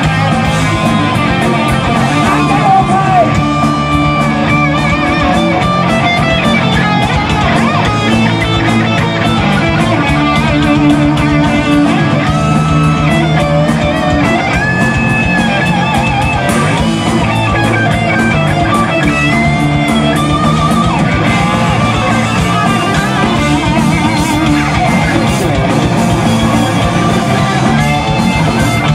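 Heavy metal band playing live: distorted electric guitars and drums, with a lead guitar melody of held, bent notes with vibrato over the band.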